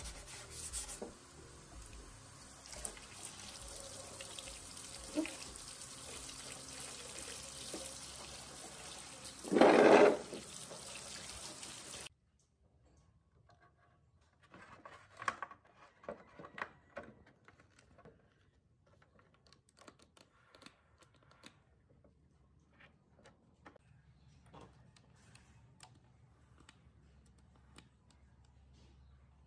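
Water running and splashing while a motorcycle fender is wet-sanded, with a brief loud noise about ten seconds in. The sound cuts off suddenly about twelve seconds in, and what follows is quiet, with faint scattered clicks and taps.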